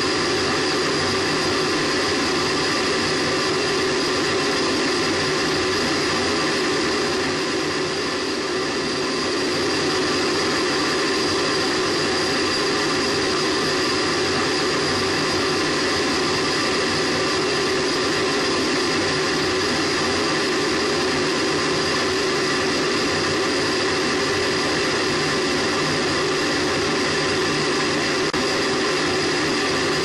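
Space Shuttle solid rocket booster firing during ascent, picked up by a microphone on the booster: a loud, steady noise with constant whining tones through it, dipping slightly in level about eight seconds in.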